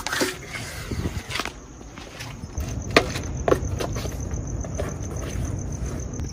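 Scattered knocks and scuffs of a person climbing a wall in sneakers, a few sharp ones standing out over a steady low background hum.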